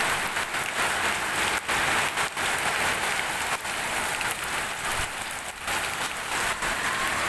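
Close-miked eating sounds of wet, water-soaked rice (panta bhat) being mixed and eaten by hand: a dense, steady wet crackle with scattered sharp clicks.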